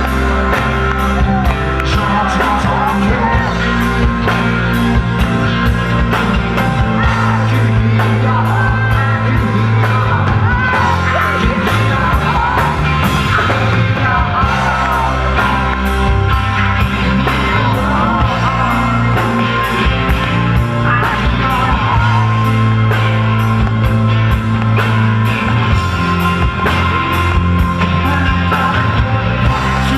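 Live rock band playing, with a steady drum and cymbal beat and bass under a wavering melody line.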